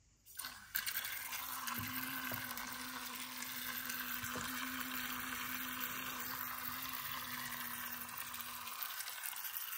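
Zuru Robo Boat toy's small battery-powered propeller motor switching on as it touches the water, then running with a steady hum while the prop churns and splashes water as the boat spins in tight circles. The sound starts about a second in.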